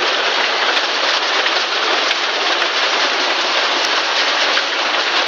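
Heavy rain mixed with hail pouring down onto a garden pond, paving slabs and grass: a steady, dense hiss of falling water.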